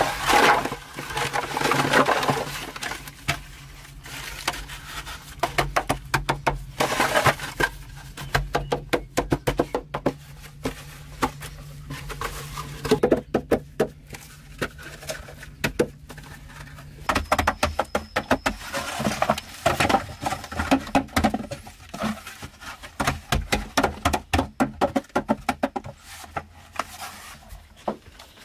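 Irregular knocking, tapping and scraping: runs of quick taps, with louder scraping or rustling bursts at the start, around seven seconds and again between about seventeen and twenty-one seconds, over a faint low hum that stops about halfway through.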